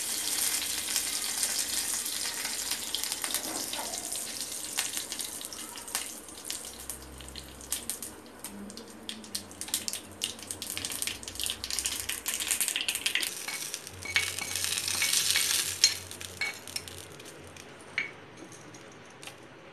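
Mustard seeds and curry leaves sizzling and crackling in hot oil in a small pan, the tempering for coconut chutney. The sizzle dies down, swells again for a couple of seconds near the end, then fades out.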